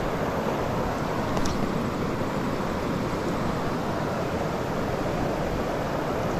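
River water rushing steadily over a stony riffle.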